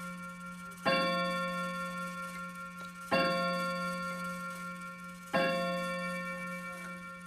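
Howard Miller triple chime mantel clock striking the hour: the same single bell-like note sounds three times, about every two and a quarter seconds, each ringing on and fading before the next.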